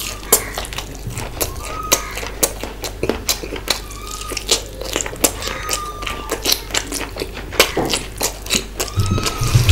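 Close-miked wet chewing and lip-smacking of a mouthful of mutton curry and rice eaten by hand: a quick, uneven run of sharp smacks and clicks. Near the end a louder, deeper sound joins in.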